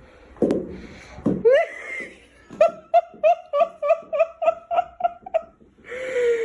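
A person laughing hard in a rapid run of high-pitched "ha"s, about five a second, after a short rising squeal; a drawn-out vocal sound follows near the end.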